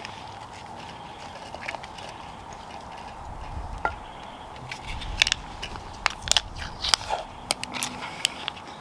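Irregular crunching and sharp clicks from food and cookware being handled, bunched in the second half.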